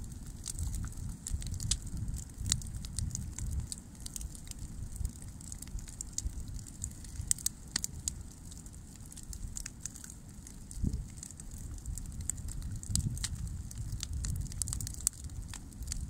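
Brushwood bonfire burning, crackling with frequent sharp pops over a steady low rumble.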